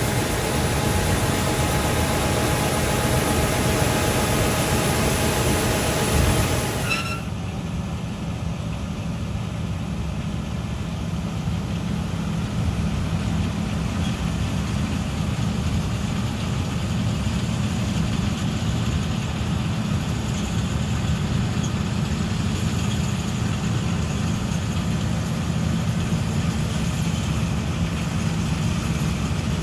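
Heavy diesel farm machinery running steadily. About seven seconds in, the sound changes abruptly to a deeper, steadier engine hum.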